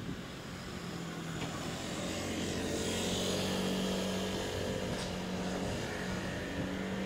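An engine droning steadily with a low hum, swelling to its loudest about three to four seconds in and then easing off slightly.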